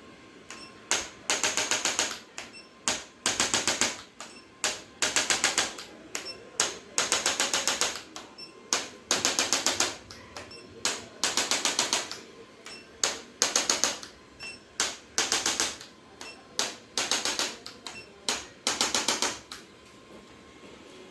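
A handheld electric percussion instrument tapping in quick bursts, about twenty of them, each under a second long and made of very rapid, even taps, with short pauses between.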